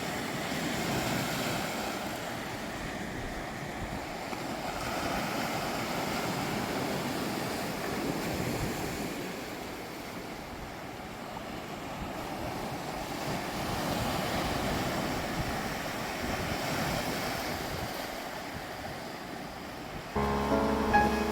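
Sea surf breaking and washing on the shore, an even rush that swells and ebbs every several seconds. Background music comes in near the end.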